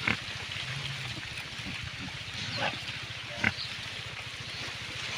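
Pigs grunting against a steady low pulsing, with three short sharp noises: one right at the start and two more about two and a half and three and a half seconds in.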